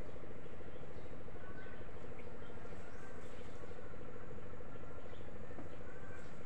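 Outdoor garden ambience: a few faint, short bird chirps over a steady buzzing hum and low rumble.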